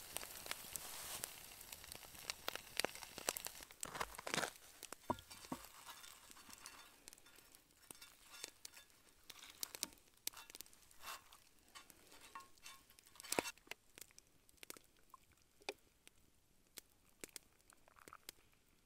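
Campfire crackling with irregular sharp pops, and a soft sizzling hiss that fades over the first couple of seconds.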